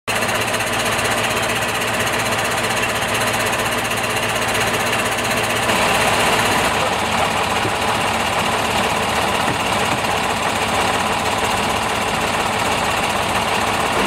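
Mercedes-Benz fire engine's diesel engine running steadily close by.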